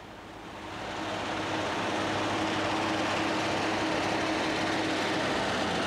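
A WWII-era German army truck's engine running as the truck drives up over cobblestones. It grows louder over the first second or so, then holds steady with a low hum.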